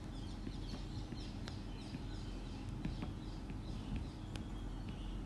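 Small birds chirping in the background, in quick repeated high chirps, over a low steady hum, with a few sharp clicks.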